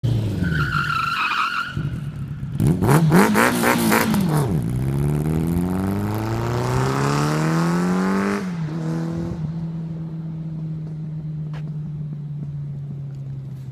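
Motorcycle engine revved hard and rising and falling in pitch, then accelerating away with its note climbing steadily for about four seconds. The pitch drops at a gear change about eight seconds in, and the engine then holds a steady note while fading into the distance.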